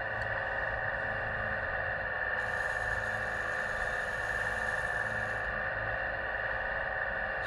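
RC Maeda tracked crane working with a steady drone, joined by a higher whir from about two and a half seconds in to five and a half seconds as it lowers a rail track section on its hook.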